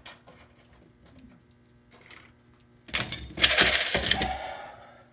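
Pennies dropped into a metal-melting crucible: a few faint clicks, then about three seconds in a brief loud jangle of coins clinking against each other and the pot, ringing out as they settle.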